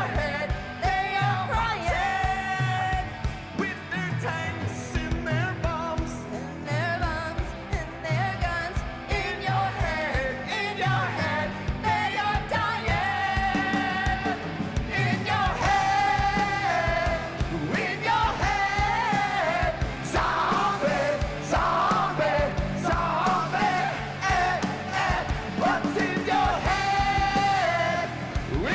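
Live rock band playing with a woman and a man singing: electric guitars, bass, drums and keyboard under the vocals, with a steady beat.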